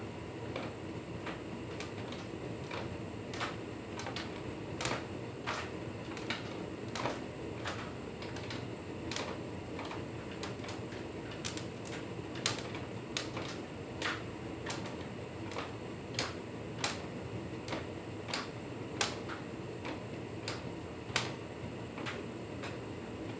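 Hotpoint Ultima S Line tumble dryer running mid-cycle, a steady drum-and-fan noise with irregular sharp clicks, roughly one or two a second.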